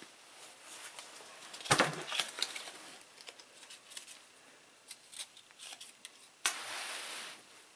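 Small clicks and rustles of a paper matchbook being handled, with a sharp knock about two seconds in. Near the end a paper match is struck and flares with a hiss that lasts about a second.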